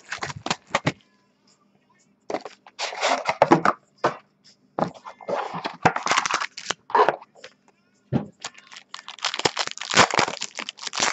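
Sealed box of baseball cards being opened by hand: wrapping and cardboard tearing, crackling and crumpling in irregular bursts, with short pauses.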